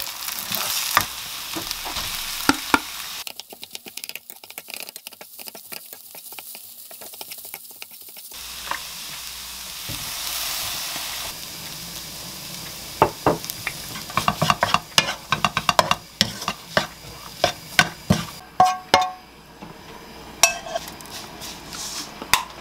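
Eggs and rice frying and sizzling in a nonstick pan while being stirred and scraped with a wooden spatula. Sharp taps of the spatula against the pan run throughout, loudest in the second half.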